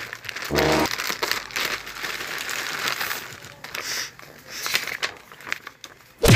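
Plastic courier mailer and a paper sheet crinkling and rustling as they are handled and unfolded, with irregular small crackles and a loud sharp crackle right at the end.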